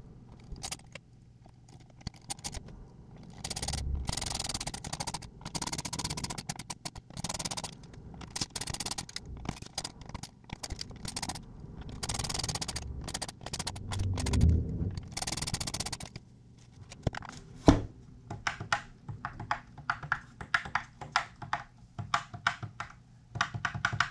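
Hand assembly of a plastic car-radio dash-kit bezel: a screwdriver turns screws into the plastic, with scraping and rustling of parts on the desk. A sharp knock comes about three-quarters of the way through, then a run of quick small clicks as the plastic pieces are handled.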